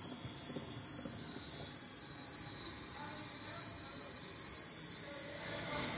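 A loud, steady high-pitched electronic tone, a single unwavering pitch held without a break, from a live rig of cable-patched electronics.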